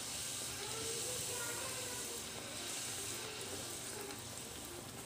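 A puri deep-frying and puffing up in hot oil in a kadai, the oil sizzling steadily.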